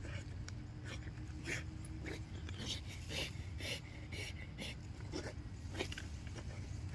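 A pit bull breathing hard in short, uneven breaths, about two a second, over a steady low hum.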